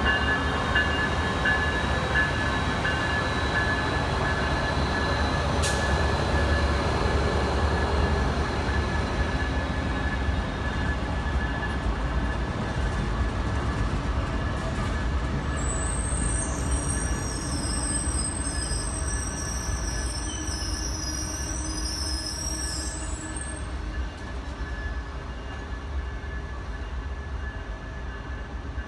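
Amtrak passenger train rolling slowly past on diesel locomotives, a steady rumble with a thin, steady squeal from the wheels. It grows gradually quieter as the locomotives move off and the passenger cars follow.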